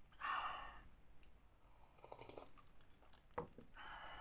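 Drinking from a plastic cup: swallowing and breathy exhales close to the microphone, the loudest just after the start and another just before the end, with a short click about three and a half seconds in as the cup is set down.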